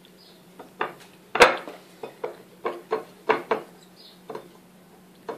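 A white ceramic plate clinking and knocking on a wooden table, about ten short taps in an uneven string, the loudest about one and a half seconds in.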